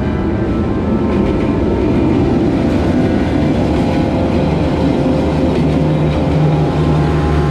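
A diesel-hauled passenger train passing close by at speed: the locomotive's engine goes past, then the passenger coaches roll by on the track with a loud, steady rumble.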